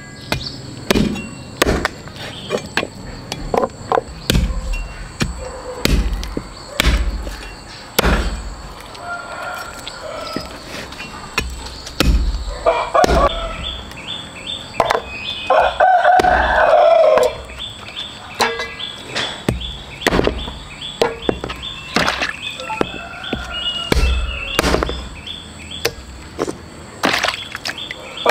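Rooster crowing, with one long crow about halfway through and shorter calls before and near the end, over a run of irregular sharp knocks and taps.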